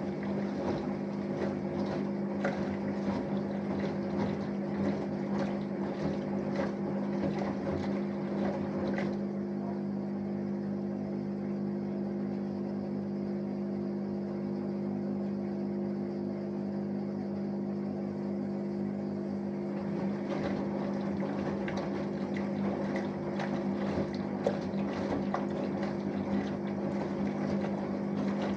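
Samsung Eco Bubble washing machine running a wash cycle: a steady motor hum, with laundry and water sloshing and tumbling in the drum for the first nine seconds or so and again from about two-thirds of the way in.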